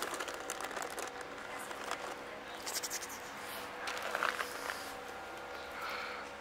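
White plastic carrier bag rustling in short, uneven bursts as a hand reaches into it for more food.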